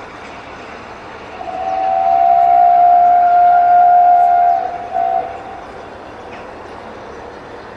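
Whistle of the steam locomotive Tornado, an LNER Peppercorn A1 Pacific: one long steady blast of about three seconds, then a short toot, over a steady background hiss.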